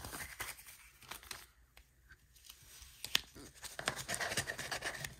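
Paper dollar bills rustling and crinkling as they are handled and pushed by hand into a glass jar packed with cash, quiet and intermittent, with one sharp click about three seconds in and a busier stretch of rustling near the end.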